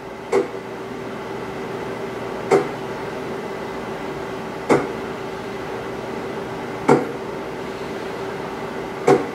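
Taig CNC lathe's cross-slide motor making five short moves, about one every two seconds, each a brief sharp burst over a steady hum. These are the 10-thousandths steps of a test program, with a two-second G04 dwell between them.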